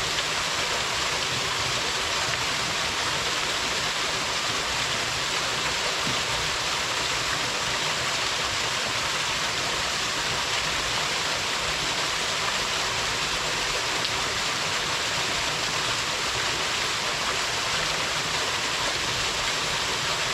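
Waterfall splashing into its plunge pool: a steady, even rush of falling water, strongest in the hiss range, with no changes.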